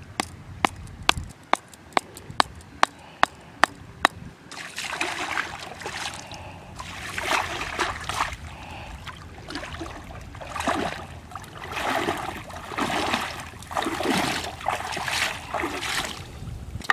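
Hammer driving a wooden stake into a riverbed: about ten sharp knocks at a steady pace, roughly two a second, over the first four seconds. After that, water splashes and sloshes in repeated bursts as hands work in shallow water and feet wade.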